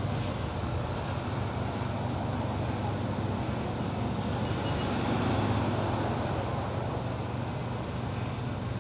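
Electric hair clipper buzzing steadily as it cuts a customer's hair, a low even hum that swells a little about halfway through.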